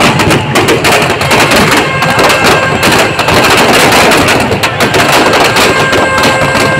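Firecrackers packed inside a burning Ravana effigy going off in a dense, continuous crackle of rapid overlapping pops.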